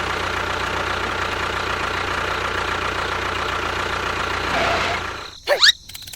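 A steady engine rumble with a low hum, as from a mini tractor or bulldozer running, fading out about five seconds in. Just after it comes a short, loud sweeping sound that glides up and down in pitch.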